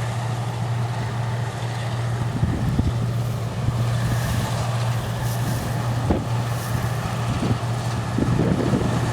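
Harvest machinery running steadily with a constant low engine hum, and wind buffeting the microphone in gusts from a couple of seconds in.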